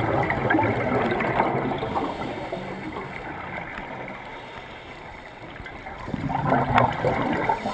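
Scuba regulator exhaust bubbles from a diver's exhalation, heard underwater as a loud gurgling rush. It comes in two breaths: one at the start lasting about two and a half seconds, then a quieter lull, then another from about six seconds in.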